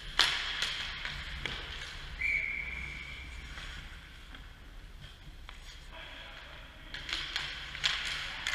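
Ice hockey play in an indoor rink: skates scraping on the ice and sticks and puck clacking, with one sharp crack just after the start and a cluster of clacks near the end.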